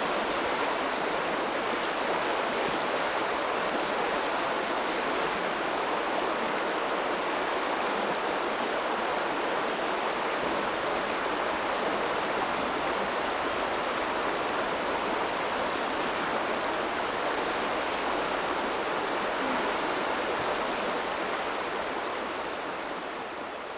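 River water flowing, a steady even rush that eases down over the last couple of seconds.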